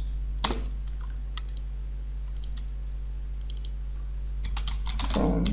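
Light clicking of a computer keyboard and mouse as names are typed in. There is one sharper click about half a second in, then small scattered clusters of key clicks, over a steady low electrical hum.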